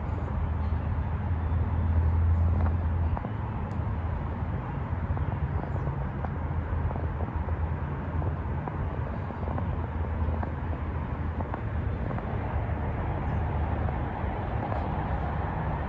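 Steady low outdoor background rumble, a little louder for a couple of seconds near the start.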